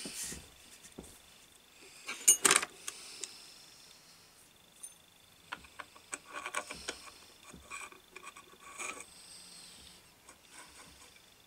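Metal parts of a single-phase induction motor being handled during reassembly: a sharp metallic clatter about two seconds in, then a run of small clicks and scrapes as a long through-bolt is fed into the end cover.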